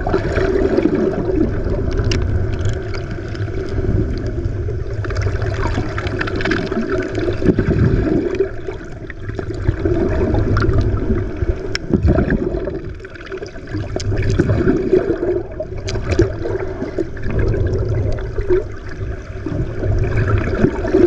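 Water sloshing and gurgling around a small boat at sea, in an uneven rush that swells and fades every few seconds.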